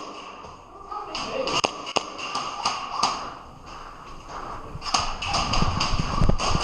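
Airsoft guns firing: scattered sharp pops and BB impacts. From about five seconds in they come thick and fast, mixed with heavy running footsteps and body thumps.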